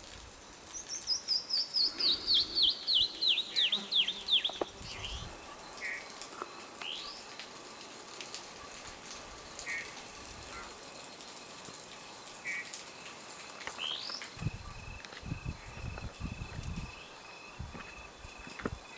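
A songbird sings a run of about fifteen quick whistled notes that fall steadily in pitch, followed by scattered short high chirps and a couple of rising notes. In the last few seconds a steady high buzzing starts, with a few low thumps under it.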